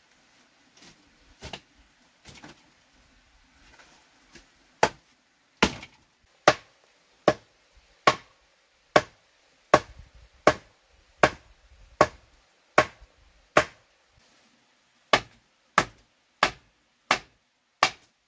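Wood being chopped in steady, sharp blows, about one every 0.8 seconds, with a short break about three-quarters through. A few softer knocks come first.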